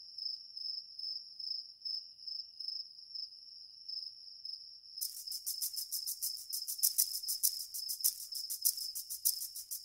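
Crickets chirping: a steady pulsing high trill, joined about halfway through by a faster, denser chirping, fairly quiet. It is the night-time ambience of the cartoon scene.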